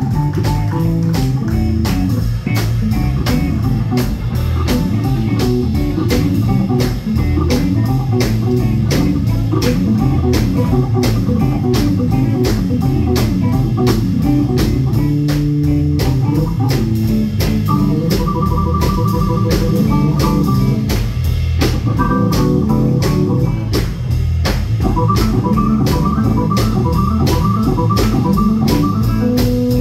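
Live rock band in an instrumental passage: an organ-voiced keyboard solo over drum kit, bass and electric guitar with a steady beat. From about halfway through, the organ plays quick repeated high notes.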